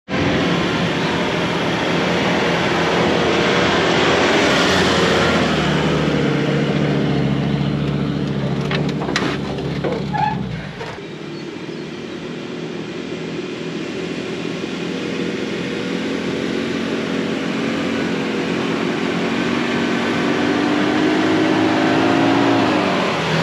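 A four-wheel-drive ute's engine working steadily as it tows a heavy boat trailer through soft sand. The sound changes abruptly about halfway through, and the engine note rises near the end as the vehicle draws close.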